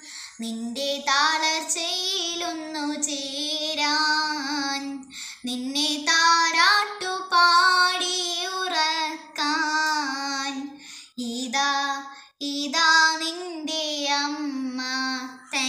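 A young girl singing a Malayalam Marian devotional song solo and unaccompanied, in long held, wavering phrases with brief pauses between them.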